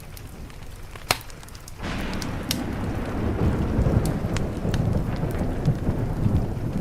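Thunder rumbling in over steady rain: a deep rumble sets in suddenly about two seconds in and carries on. Sharp wood-fire crackles pop throughout, one loud pop about a second in.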